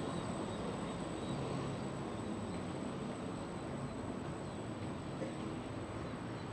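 Steady outdoor ambience of a city waterfront: a low, even hum under a wash of noise, with a few faint, short bird chirps near the end.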